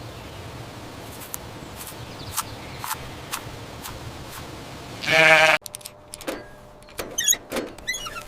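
A sheep bleats once, loudly, about five seconds in. Before it there are a few light clicks over a steady background hum. After it the sound cuts abruptly to quieter ambience with scattered taps and faint chirps.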